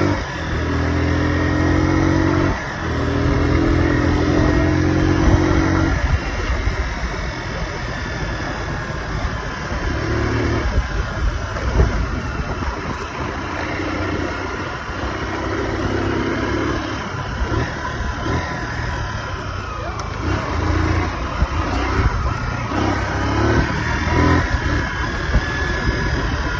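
Honda motorcycle engine running while riding, the engine note picking up and easing off several times, with a brief break about two and a half seconds in, over a steady rush of wind and road noise.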